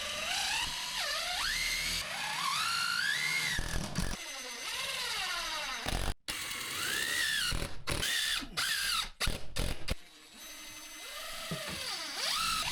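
Cordless drill motor whirring in short runs, its pitch rising and falling as the trigger is squeezed and eased, with sudden breaks between runs.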